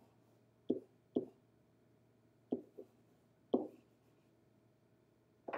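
Pen tip tapping and knocking against the surface of an interactive whiteboard while letters and an arrow are written: about six short, sharp taps at uneven spacing, with a slightly louder knock right at the end.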